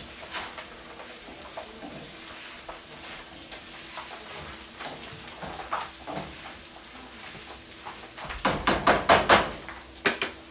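Cardboard egg trays being crushed by hand and underfoot: soft crackling and crinkling with scattered small crunches, then a quick run of about six loud crunches or stamps near the end.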